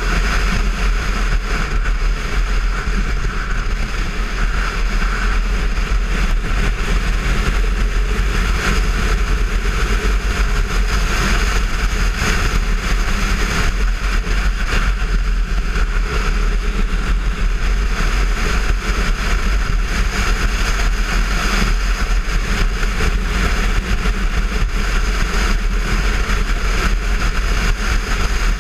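Wind buffeting the microphone of a motorcycle onboard camera, over a Kawasaki Versys 650's parallel-twin engine running at a steady road speed. The rumble and rush stay level throughout, with no gear changes or sharp revving standing out.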